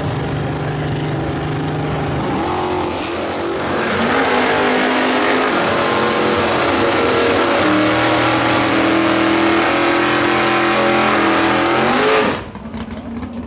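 Pontiac door-slammer drag car's engine running loudly, revving up and held at high revs during a burnout as its rear tyres spin. The pitch climbs sharply near the end, then cuts off suddenly.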